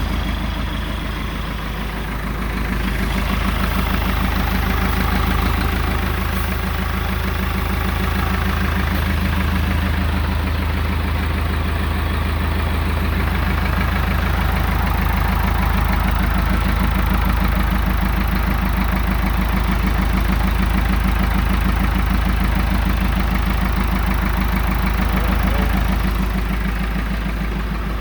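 Ford backhoe's diesel engine running steadily at idle, just after its first start following a rebuild, and sounding healthy. It gets a little louder about three seconds in.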